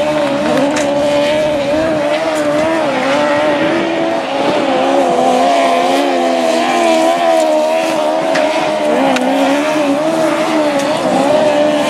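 Autograss race cars' engines running hard in a race. The note wavers up and down continuously as the drivers come off and get back on the throttle.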